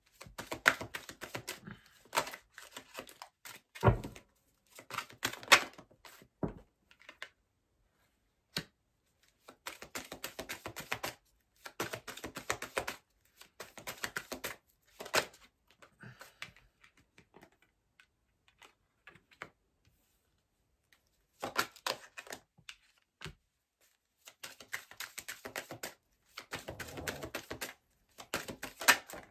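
A deck of tarot cards being shuffled and laid out on a table, in bursts of rapid clicking a second or two long with short pauses between.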